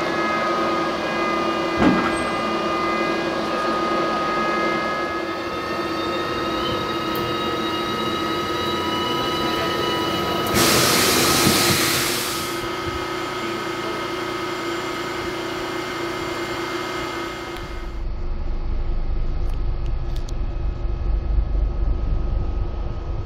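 ZSSK class 381 electric locomotive standing at the platform, its electrical equipment giving a steady whine of several tones, with a sharp click about two seconds in and a loud burst of hissing about ten seconds in. Near the end the whine gives way to a low rumble.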